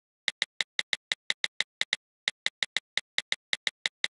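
A quick run of sharp clicks, about six a second with a brief pause about two seconds in, as the undo control of an iPad drawing app is tapped over and over to remove brush strokes.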